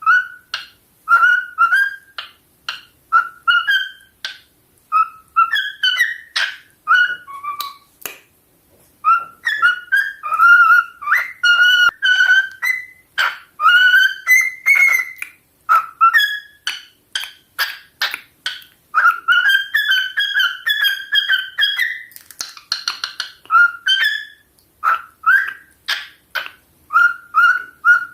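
Male cockatiel singing: a long run of short, quick whistled notes and chirps, broken by one pause of about a second some eight seconds in.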